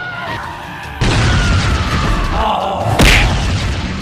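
Cartoon sound effects over music: a sudden loud burst about a second in carrying a slowly falling tone, then a heavy hit about three seconds in.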